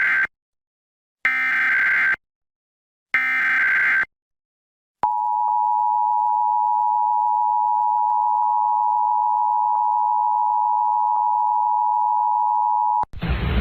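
Emergency Alert System SAME header: the end of one data burst, then two more, each about a second long with a second of silence between them. About a second after the last burst, the EAS two-tone attention signal (853 and 960 Hz) sounds steadily for about eight seconds and cuts off suddenly. Together they open a Required Monthly Test.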